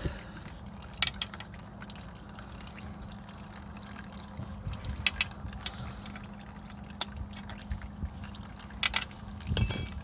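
Engine oil draining from a motorcycle's sump drain hole into a bucket in a steady trickle, with a few sharp clicks.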